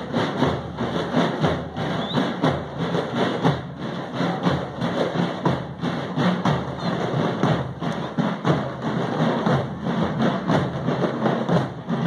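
Parade drums beating a steady, rapid marching rhythm.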